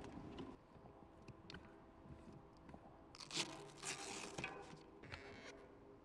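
Quiet handling sounds as a mountain bike is lifted up to a car roof rack: scattered light clicks and knocks, with a short crunching rustle about three and a half seconds in.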